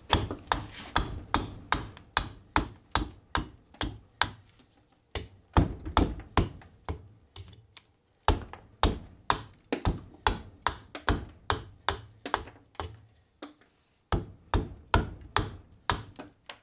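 Hatchet chopping a green black walnut branch, hewing a ladle blank with quick, sharp strokes about two to three a second, pausing briefly a few times.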